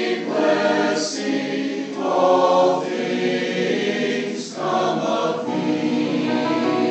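Adult choir singing sustained chords together, phrase by phrase, with short breaks between phrases. A sung 's' hisses briefly about a second in and again about four and a half seconds in.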